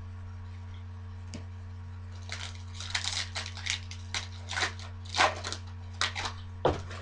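Foil trading card pack being torn open and handled: a quick run of crinkling, tearing crackles from about two seconds in, over a steady low electrical hum.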